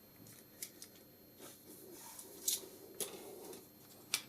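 Small plastic clamp being handled: a handful of short, sharp plastic clicks and light rattles, the loudest in the second half, as its loose grip pads are fiddled with.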